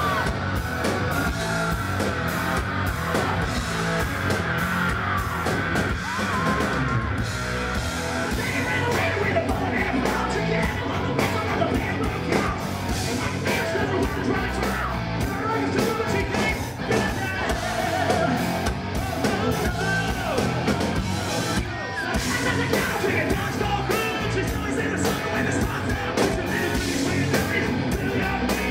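Hard rock band playing live and loud, with electric guitar and drums, and the singer's voice yelling and singing over the band.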